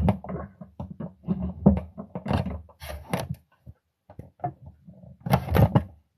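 Handling noise from a phone camera being picked up and repositioned: irregular knocks, bumps and rubbing, with a pause in the middle and a further cluster of bumps near the end.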